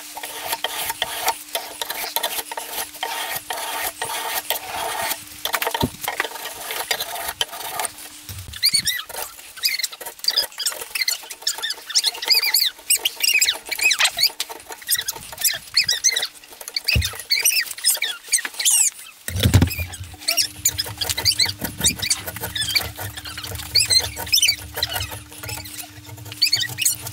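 Hand file rasping along the edges of a mahogany handle glued to a steel spatula tang and clamped in a vise, in quick repeated strokes to round the edges over. From about a third of the way in, high squeaks ride on the strokes.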